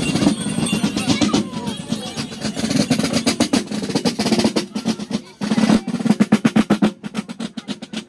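Basel drums played by Tambouren: rapid snare-drum strokes and rolls in a marching rhythm, briefly breaking off twice in the second half.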